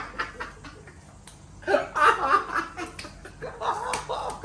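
A rubber band snapped against skin, several short sharp snaps in the first second, followed by bursts of laughter.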